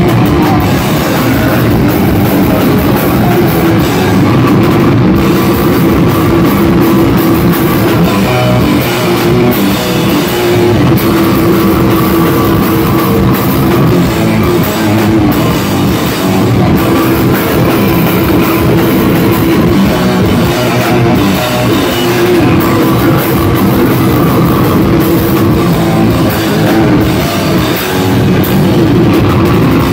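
Heavy metal band playing live at high volume: electric guitar, bass guitar and drum kit in a dense, unbroken wall of sound.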